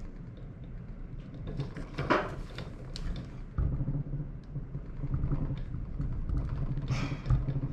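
Hand tools working on a kayak pedal drive's crank: a wrench turning a pedal-arm puller tool, with short clicks, a scrape and several low handling thumps.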